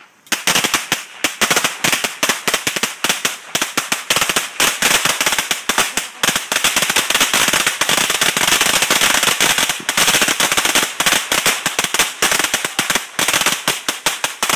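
A long string of firecrackers going off in dense, rapid cracks, many a second.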